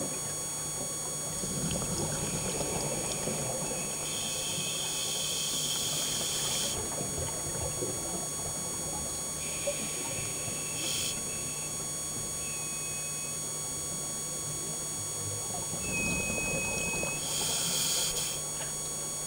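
Scuba diver breathing through a regulator: a rush of exhaled bubbles comes in bursts every several seconds, over a steady electronic hum.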